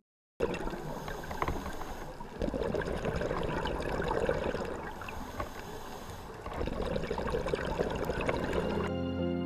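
Underwater sound from a diver's camera: a bubbling, rushing noise of the diver's exhaled air through the scuba regulator, swelling twice, with scattered small clicks. Background music comes back in near the end.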